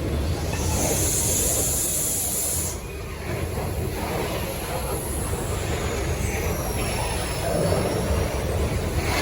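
Freight train running past with a steady low rumble. A high hiss cuts off abruptly about three seconds in, and a thin high squeal slides slowly down in pitch in the middle.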